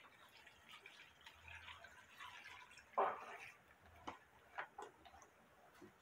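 Water poured from a plastic jug into a pot of sliced banana blossom, a faint trickle, with one short louder noise about three seconds in. Then scattered light clicks as a hand stirs the wet slices in the pot.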